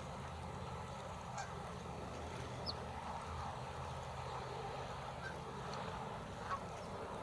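Mallard hen calling in low quacks while her ducklings give short, high peeps, over a steady low background hum.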